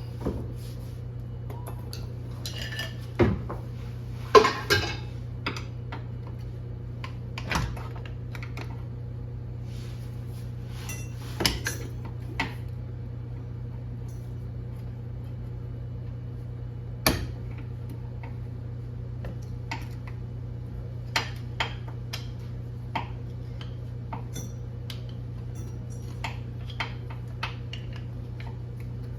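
Scattered metal clinks and clanks of hand tools and car parts being handled during a drive-axle replacement, the loudest a quick cluster about four seconds in, with a steady low hum underneath.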